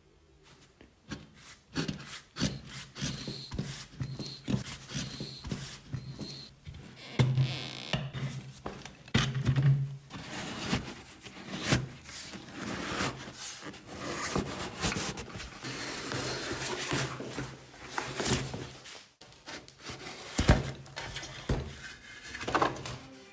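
Workshop work noises on parts being restored: irregular knocks, clunks and scraping or rubbing, over soft background music.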